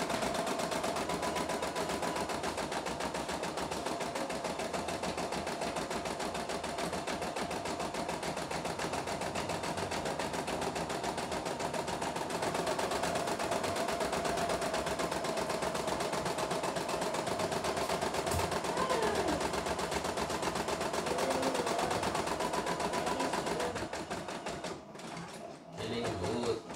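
CNY E960 computerized embroidery machine stitching a design, its needle running in a fast, steady rhythm. Near the end the steady stitching breaks off into a few irregular, quieter mechanical sounds.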